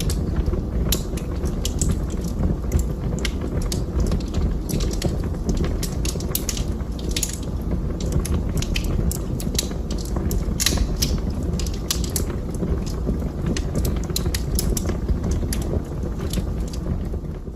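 Wood fire burning in a fireplace: a steady low rumble of flames with frequent sharp, irregular crackles and pops of the burning wood.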